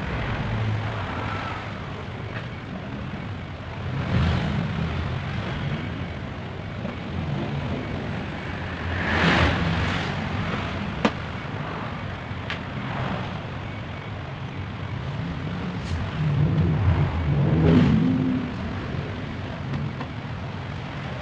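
Road traffic going by: a steady low rumble that swells as several vehicles pass, with a sharp click partway through.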